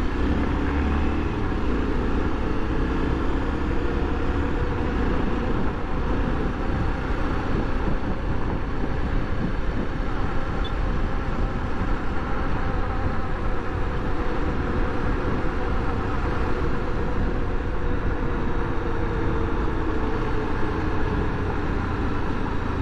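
Honda XRE300 single-cylinder motorcycle engine running under way in traffic, its pitch drifting up and down a little with speed. A steady low rumble of wind and road noise runs underneath.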